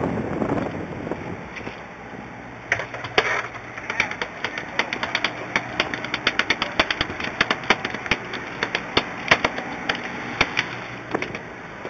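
A fast, irregular run of sharp clicks or taps, several a second, starting about three seconds in and stopping near the end, over the steady low hum of a boat's engine.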